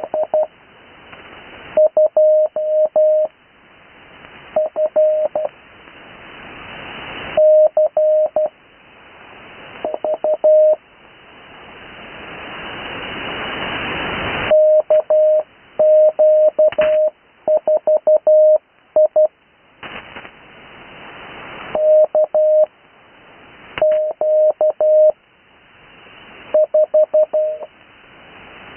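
Morse code call signs sent as a single steady tone of about 600 Hz, keyed in quick groups of characters with pauses between them, heard over an 80 m amateur radio receiver. A background hiss swells up in each pause between groups.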